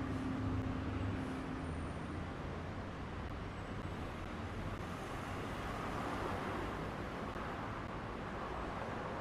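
Steady hum of distant city road traffic, an even wash of noise with no distinct vehicles standing out. Music fades out in the first two seconds.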